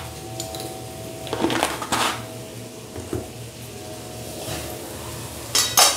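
A steel ladle knocking and scraping against a metal kadai of masala-coated potatoes, a few scattered clatters with the loudest just before the end as stirring starts.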